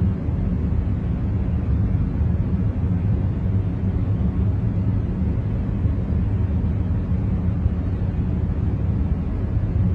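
Steady, deep rumbling noise from a concentration noise track, with most of its weight in the bass and little hiss. It runs evenly, with no strikes, swells or breaks.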